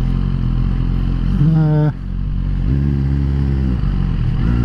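Suzuki GSX-R1000R's inline-four engine running at low road speed. About one and a half seconds in the revs rise briefly and loudly, then cut off sharply just before two seconds, and the engine settles into a steadier, lower note.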